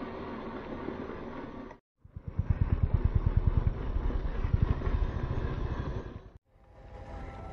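Radio-controlled scale truck (WPL 1:13, 370 motor) driving over dry dirt, an engine-like running sound broken by two abrupt cuts. The middle stretch has a rapid, loud low pulsing; the last stretch is a steadier sound with a faint whine.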